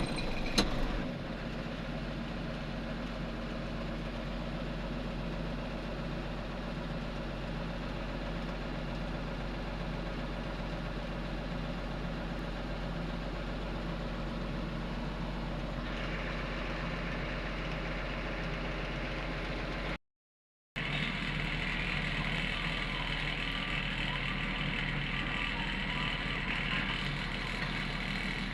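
Heavy diesel machinery engine running steadily at a fairly even speed. A couple of sharp knocks sound right at the start. About two-thirds through the sound briefly cuts out, then the engine resumes with a harsher, higher-pitched edge.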